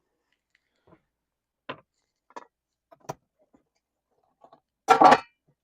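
Loaf pans and a wire cooling rack being handled: a few light taps and knocks spread out, then one louder, brief clatter about five seconds in.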